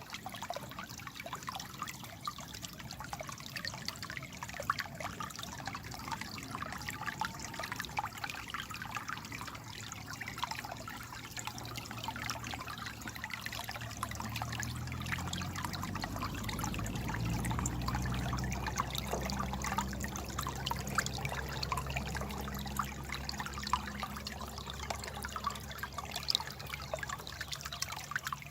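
Babbling water trickling and gurgling steadily. A low rumble swells in about halfway through and eases off toward the end.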